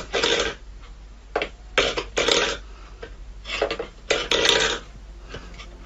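A stainless steel bowl scraping and knocking on a wooden floor as a cat paws at it, in about seven short, uneven bursts.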